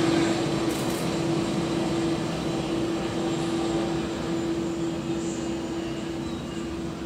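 Airbus A330-300's two GE CF6-80E1 turbofan engines running at low taxi power: a steady jet noise with one held tone, fading slowly as the airliner taxis away.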